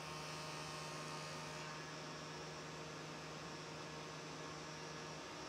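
Spindle shaper (spindle moulder) running with a steady hum while a rail end is coped on a sliding jig. A low tone in the hum drops out about five seconds in.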